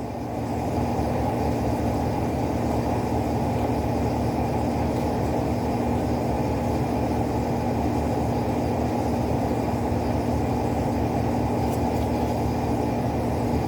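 A steady low hum with a constant tone, unchanging throughout, and one faint click near the end.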